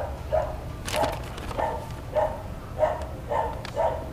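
A dog barking over and over, short barks about twice a second, over a steady low rumble, with a brief crackle about a second in.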